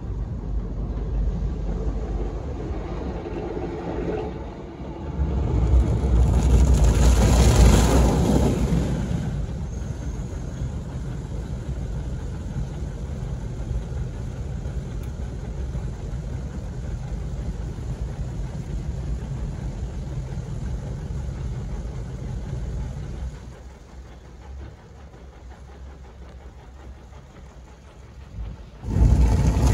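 Istobal in-bay automatic car wash running over a car, a steady noise of machinery and water. It swells loudly from about six to nine seconds in, then settles, drops quieter for the last few seconds, and comes back up sharply at the very end.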